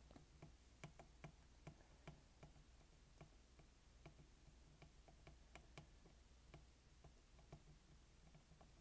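Near silence with faint, irregular light ticks, about two a second: a soldering iron tip being stroked over the contacts of a TI-83 Plus screen ribbon cable to reheat its adhesive.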